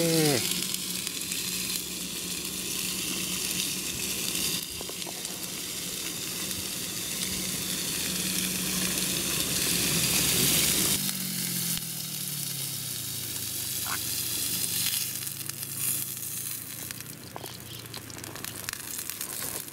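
Marbled wagyu beef sizzling steadily on a ridged grill pan over a gas canister stove. A low hum runs under it. About eleven seconds in, the hum falls in pitch and fades, and the sizzle turns lighter, with scattered pops.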